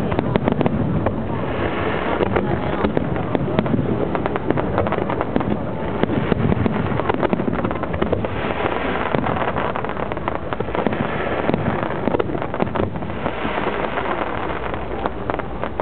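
Aerial fireworks bursting in a rapid, unbroken run of bangs and crackling.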